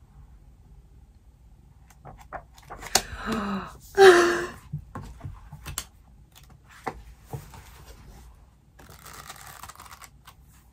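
Paper pages of a printed planner being handled and leafed through: rustling, light taps and clicks, with a louder burst about four seconds in that has a short voiced sound in it.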